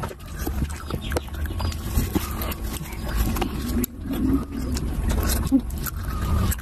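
Close-miked chewing and lip-smacking of a person eating curry and rice by hand, with many small clicks and smacks from the mouth and fingers.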